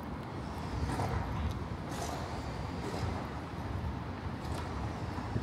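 City street ambience: a steady low rumble of distant traffic, with a few light clicks or taps.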